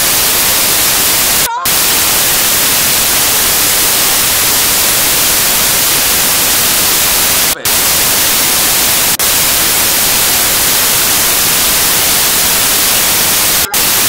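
Loud, steady static hiss across the whole sound range, cutting out briefly three times: a fault in the recording, with the picture frozen at the same time, rather than a sound from the scene.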